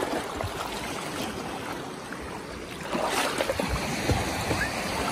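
Shallow seawater splashing and sloshing as two small children paddle and kick. The splashing grows louder about three seconds in.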